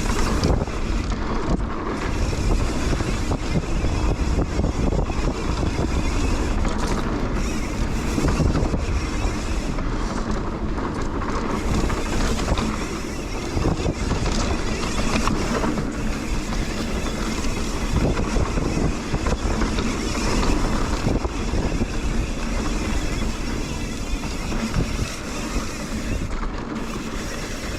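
Mountain bike riding a dirt trail: wind buffeting the microphone over steady tyre rumble and the rattle and knocks of the bike over rough ground.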